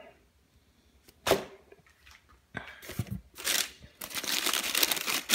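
A single sharp knock about a second in, from the cardboard shoebox being handled, then from about four seconds in a steady crackling rustle of tissue paper being pulled back from the shoes.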